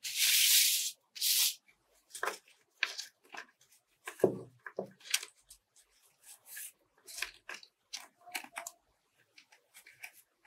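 Scissors cutting through sheets of thin paper: one long cut lasting about a second at the start, a shorter one right after, then many short snips with paper rustling as the leaf shape is trimmed.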